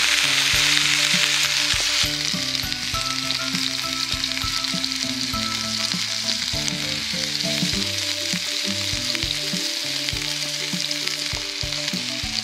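Chicken thighs sizzling skin-side down in a hot iron frying pan, pressed flat against the pan through foil. The sizzle is a dense, steady hiss, a little louder for the first two seconds.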